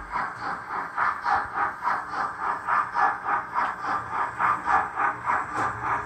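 Model BR 85 steam tank locomotive running with its steam-chuff sound, an even, steady beat of about three puffs a second.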